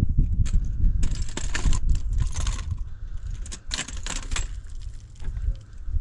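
Metal crutches clinking and scraping against rock as they are planted step by step, in two clusters of light metallic clatter over a low rumble.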